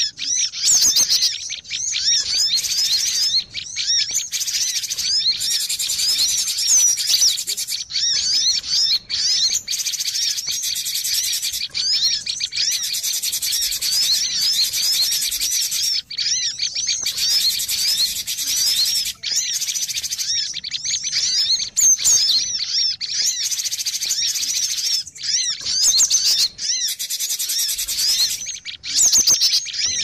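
Cinereous tits (gelatik batu) calling together in a noisy, dense chatter of quick, high chirps that overlap with hardly a pause. This is a lure recording used to draw tits in for trapping.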